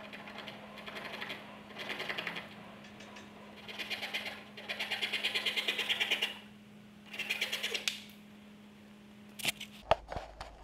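Hand saw cutting through a wooden boat gunwale in five short bursts of quick strokes with pauses between. A sharp click and a brief clatter come near the end.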